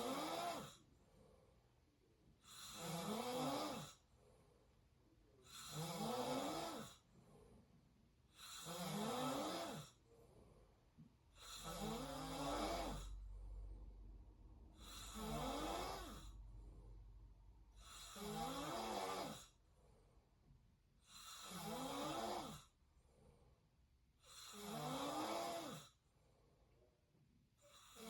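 A person snoring through an open mouth in a steady rhythm, one snore about every three seconds, eight in a row, with quiet breathing between.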